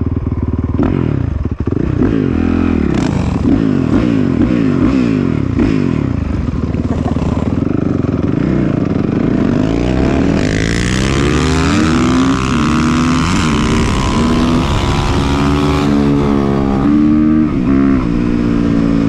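Dirt bike's single-cylinder four-stroke engine accelerating hard through the gears, its pitch climbing and then dropping back at each shift. From about ten seconds in it holds a steady high pitch at speed, with heavy wind rushing over the microphone.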